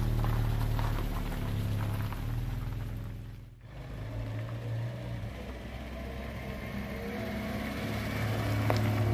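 A 1974 Peugeot 304 Coupé S's four-cylinder engine running steadily at idle. A little over three seconds in there is a break, then the car drives slowly toward the listener, its engine getting louder as it comes close near the end.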